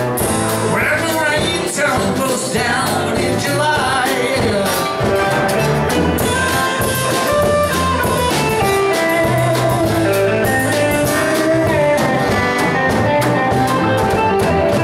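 Live country band playing an instrumental passage near the end of a song: strummed acoustic guitar, electric lead guitar and a drum kit keeping a steady beat.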